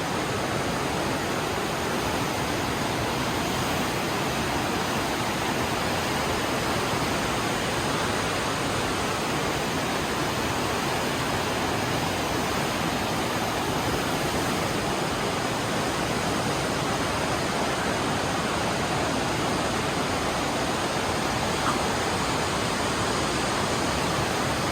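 Fast whitewater of the Aare river rushing through a narrow gorge, making a steady, unbroken rush of noise.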